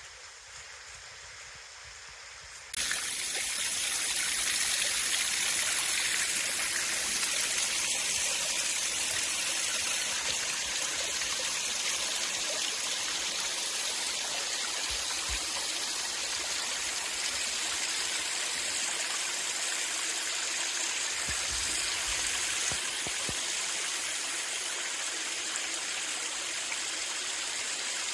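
Small waterfall and creek water splashing and trickling over rocks: a steady rush of water, fainter at first, then a sudden step up to a louder, closer rush about three seconds in.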